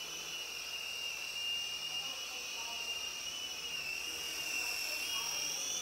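Sky Rover Vigilante micro RC helicopter in flight: its small electric motors and rotors give a steady high-pitched whine whose pitch wavers slightly as the throttle shifts.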